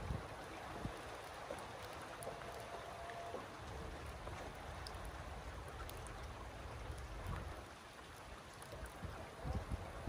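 Steady rain falling, an even hiss of drops with faint scattered ticks.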